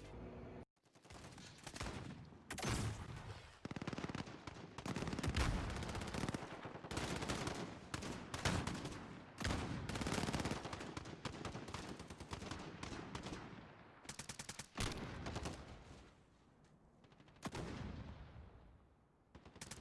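Bursts of rapid automatic gunfire, volley after volley with short gaps, thinning out to scattered shots near the end.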